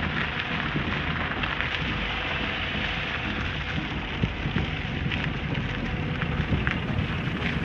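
Wind rushing over a phone's microphone outdoors: a steady hiss and rumble with a few faint clicks.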